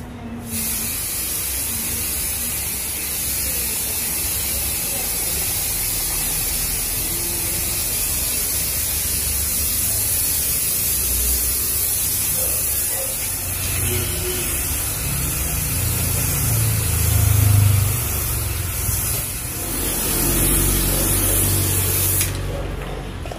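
Aerosol spray can of Elasti Dip rubberised coating spraying in one long continuous hiss, which stops shortly before the end. A low rumble swells briefly about two-thirds of the way through.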